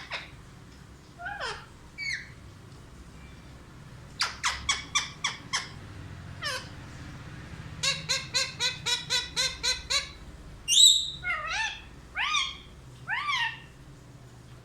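Pet parrot calling: a quick run of repeated notes, a longer run of about five notes a second, then a loud call and three slurred calls near the end.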